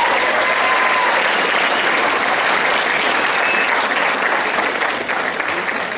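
Audience applauding, a steady wash of clapping that thins slightly near the end.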